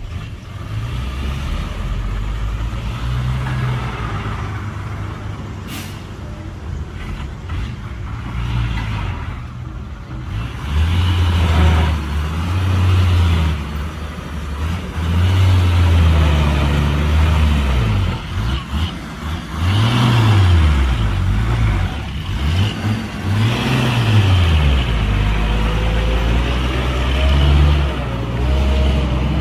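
Heavy diesel engines of earthmoving machinery running, with the engine note rising and falling again and again under load from about a third of the way in. A brief sharp sound about six seconds in.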